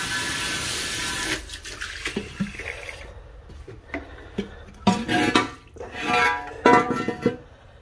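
Water running from a tap over engine parts being rinsed, cutting off about a second and a half in. Then scattered knocks and clinks from the parts being handled, with short bursts of music near the end.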